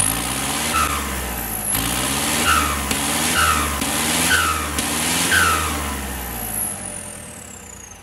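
Tractor diesel engine revved in about five short blips roughly a second apart, its pitch rising and falling with each, then dropping back and quieter near the end.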